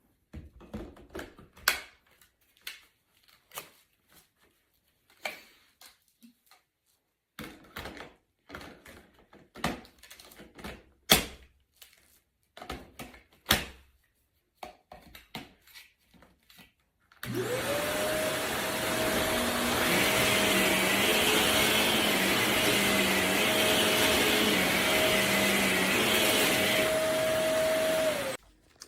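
Scattered clicks and knocks of handling, then an upright vacuum cleaner switched on about seventeen seconds in: the motor spins up to a steady pitch over a loud rush of air, runs for about eleven seconds and is switched off near the end.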